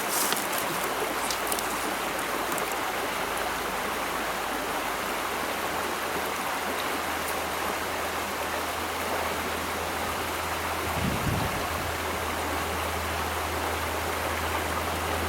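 Steady rush of a trout stream's flowing water, with a brief low bump about eleven seconds in.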